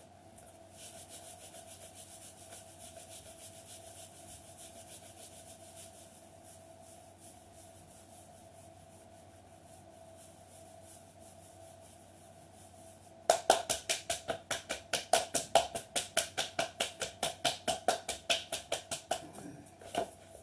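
Hands rubbing briskly up and down the thighs over cloth leggings in a self-massage. It starts as a fast, faint swishing, then about two-thirds of the way through turns to louder, even strokes at about three to four a second.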